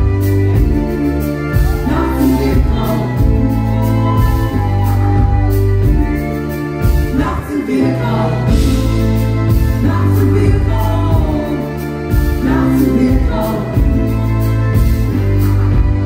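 Live band music: a woman singing a slow, gliding melody over bass, keyboard and drums.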